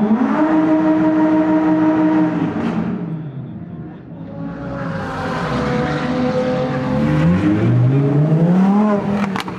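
Supercar engines accelerating past: one is held at high revs for about two seconds, then drops and fades. A second car's engine climbs in pitch as it accelerates near the end, with a sharp crack just after.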